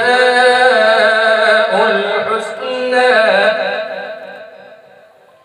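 Man reciting the Quran in melodic tilawat style into a microphone: long held notes with wavering, ornamented pitch turns, fading away over the last two seconds.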